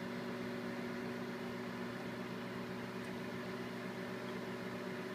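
Microwave oven running with a steady hum, heating a bag of popcorn kernels before they begin to pop.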